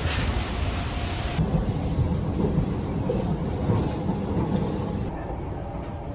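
Rain hissing on wet pavement for about a second, then the low, steady rumble of a moving metro train heard from inside the carriage. Near the end it gives way to a quieter, duller background.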